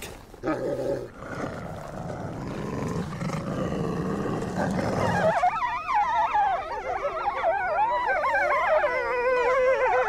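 Grey wolves growling and snarling in a dominance scuffle within the pack. About five seconds in this changes abruptly to several wolves whining and yelping together, high wavering cries overlapping one another.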